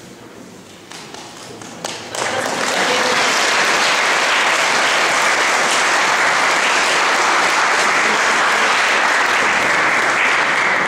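Audience applauding: clapping breaks out suddenly about two seconds in, holds steady and loud, then begins to ease off near the end.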